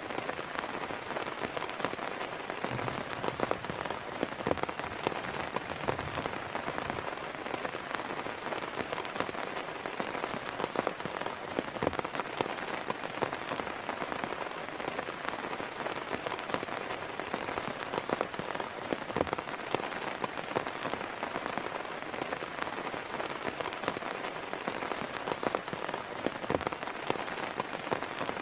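Heavy rain falling steadily, with many individual drops striking close by.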